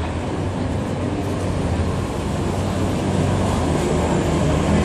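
Street traffic with a city bus passing, a steady low rumble that grows louder toward the end.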